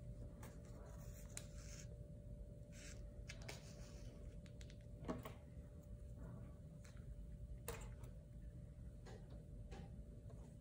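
Faint hand-sewing sounds of a leather saddle stitch: brief swishes of thread being drawn through the stitching holes and light clicks of the needle and leather being handled, over a faint steady hum.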